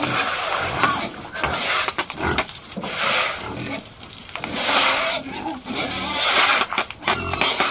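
Pigs calling in a string of loud, harsh squeals about one every second, with a few sharp clicks between them.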